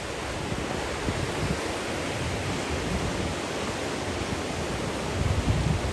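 Ocean surf washing over a rocky shore, a steady rushing noise, with wind buffeting the microphone in low gusts that grow stronger near the end.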